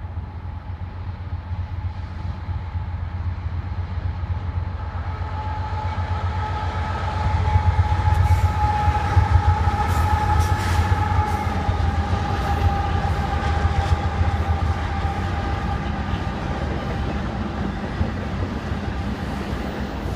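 Canadian Pacific freight train passing close by: the diesel locomotive's low rumble builds, peaks about halfway through and eases as the freight cars roll past. A steady multi-note horn chord sounds through most of the middle, dipping slightly in pitch as the locomotive goes by.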